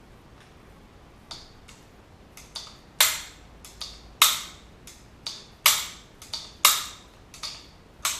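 Sharp metallic clacks from a Marlin 1894 lever-action rifle being handled, about a dozen in an uneven rhythm. The five loudest come roughly once a second from about three seconds in, each ringing briefly.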